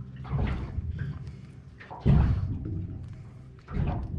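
Three dull thumps with rustling as a feisty flounder flaps while being unhooked by hand; the middle thump is the loudest.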